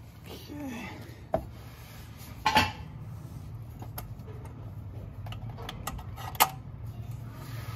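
Scattered metallic clinks and clanks of a ratchet and socket extension working the Torx bolts on an automatic transmission's oil pan. The loudest, ringing clank comes about two and a half seconds in, and another sharp one near the end.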